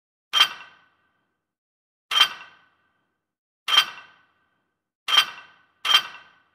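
Five identical short, bright sound effects at uneven intervals, closer together near the end. Each one is sharp at the start and dies away within about half a second, with dead silence between them.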